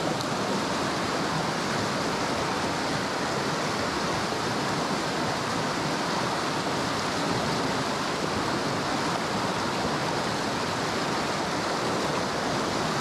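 Fast creek water rushing and churning over rocks in whitewater rapids, a steady, unbroken rush.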